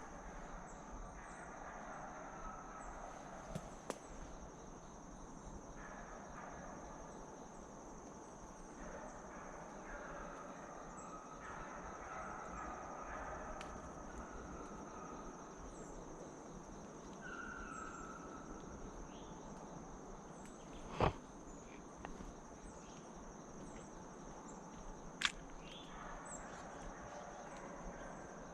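Steady insect chorus, one high continuous trill, in rural woodland, with two sharp clicks about four seconds apart late on.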